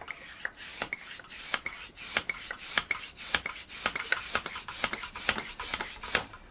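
Silca Tattico mini hand pump being worked in quick, even strokes, each stroke a short rasping hiss of air and piston, about three a second. The tyre is not inflating, as the pumper says just afterwards.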